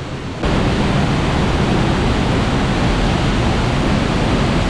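Waterfall pouring into a plunge pool: a steady rush of falling water that turns suddenly louder about half a second in.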